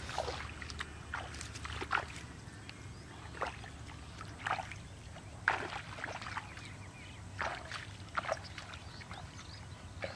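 Shallow water in a flooded rice paddy splashing and sloshing in short, irregular splashes, about one a second.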